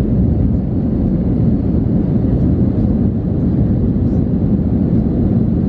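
Steady low rumble of an Airbus A319's CFM56 turbofan engines and rushing airflow, heard inside the cabin as the airliner climbs just after takeoff.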